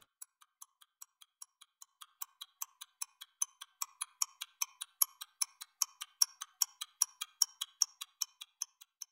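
Ticking clock sound effect: sharp, even ticks about five a second, growing steadily louder, then cutting off abruptly near the end.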